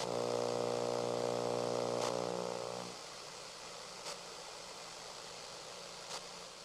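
FM radio tuned off-station: a steady buzzing tone over static hiss for about three seconds, then static hiss alone with a few faint clicks.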